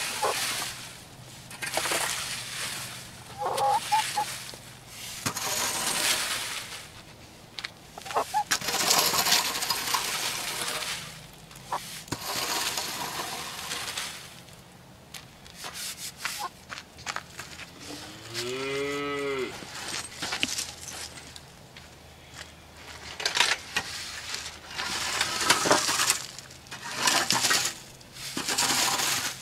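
Metal garden rake scraping across dry dirt, leaves and litter in repeated strokes, one every two to three seconds. About two-thirds of the way through, one of the birds gives a single drawn-out honking call that rises and falls.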